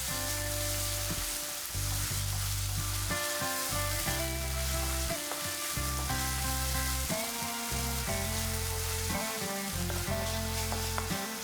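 Onion and green chilli paste frying in hot oil in a pan, a steady sizzle as it is stirred and cooked down. A melody of held notes plays alongside.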